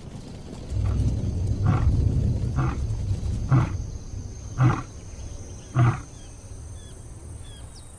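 Lion roaring: a low rumbling roar that breaks into a series of about five short, deep grunts roughly a second apart.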